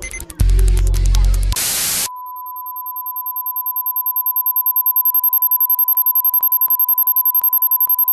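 Minimal glitch electronic music: deep bass pulses under rapid clicks, then a short burst of white noise about two seconds in. After it comes a steady pure sine tone with a very high thin tone above it, pulsing rapidly and growing louder.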